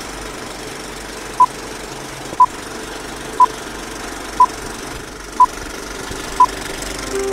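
Film countdown leader sound effect: the steady rattling whir of an old film projector, with a short high beep once a second, six times.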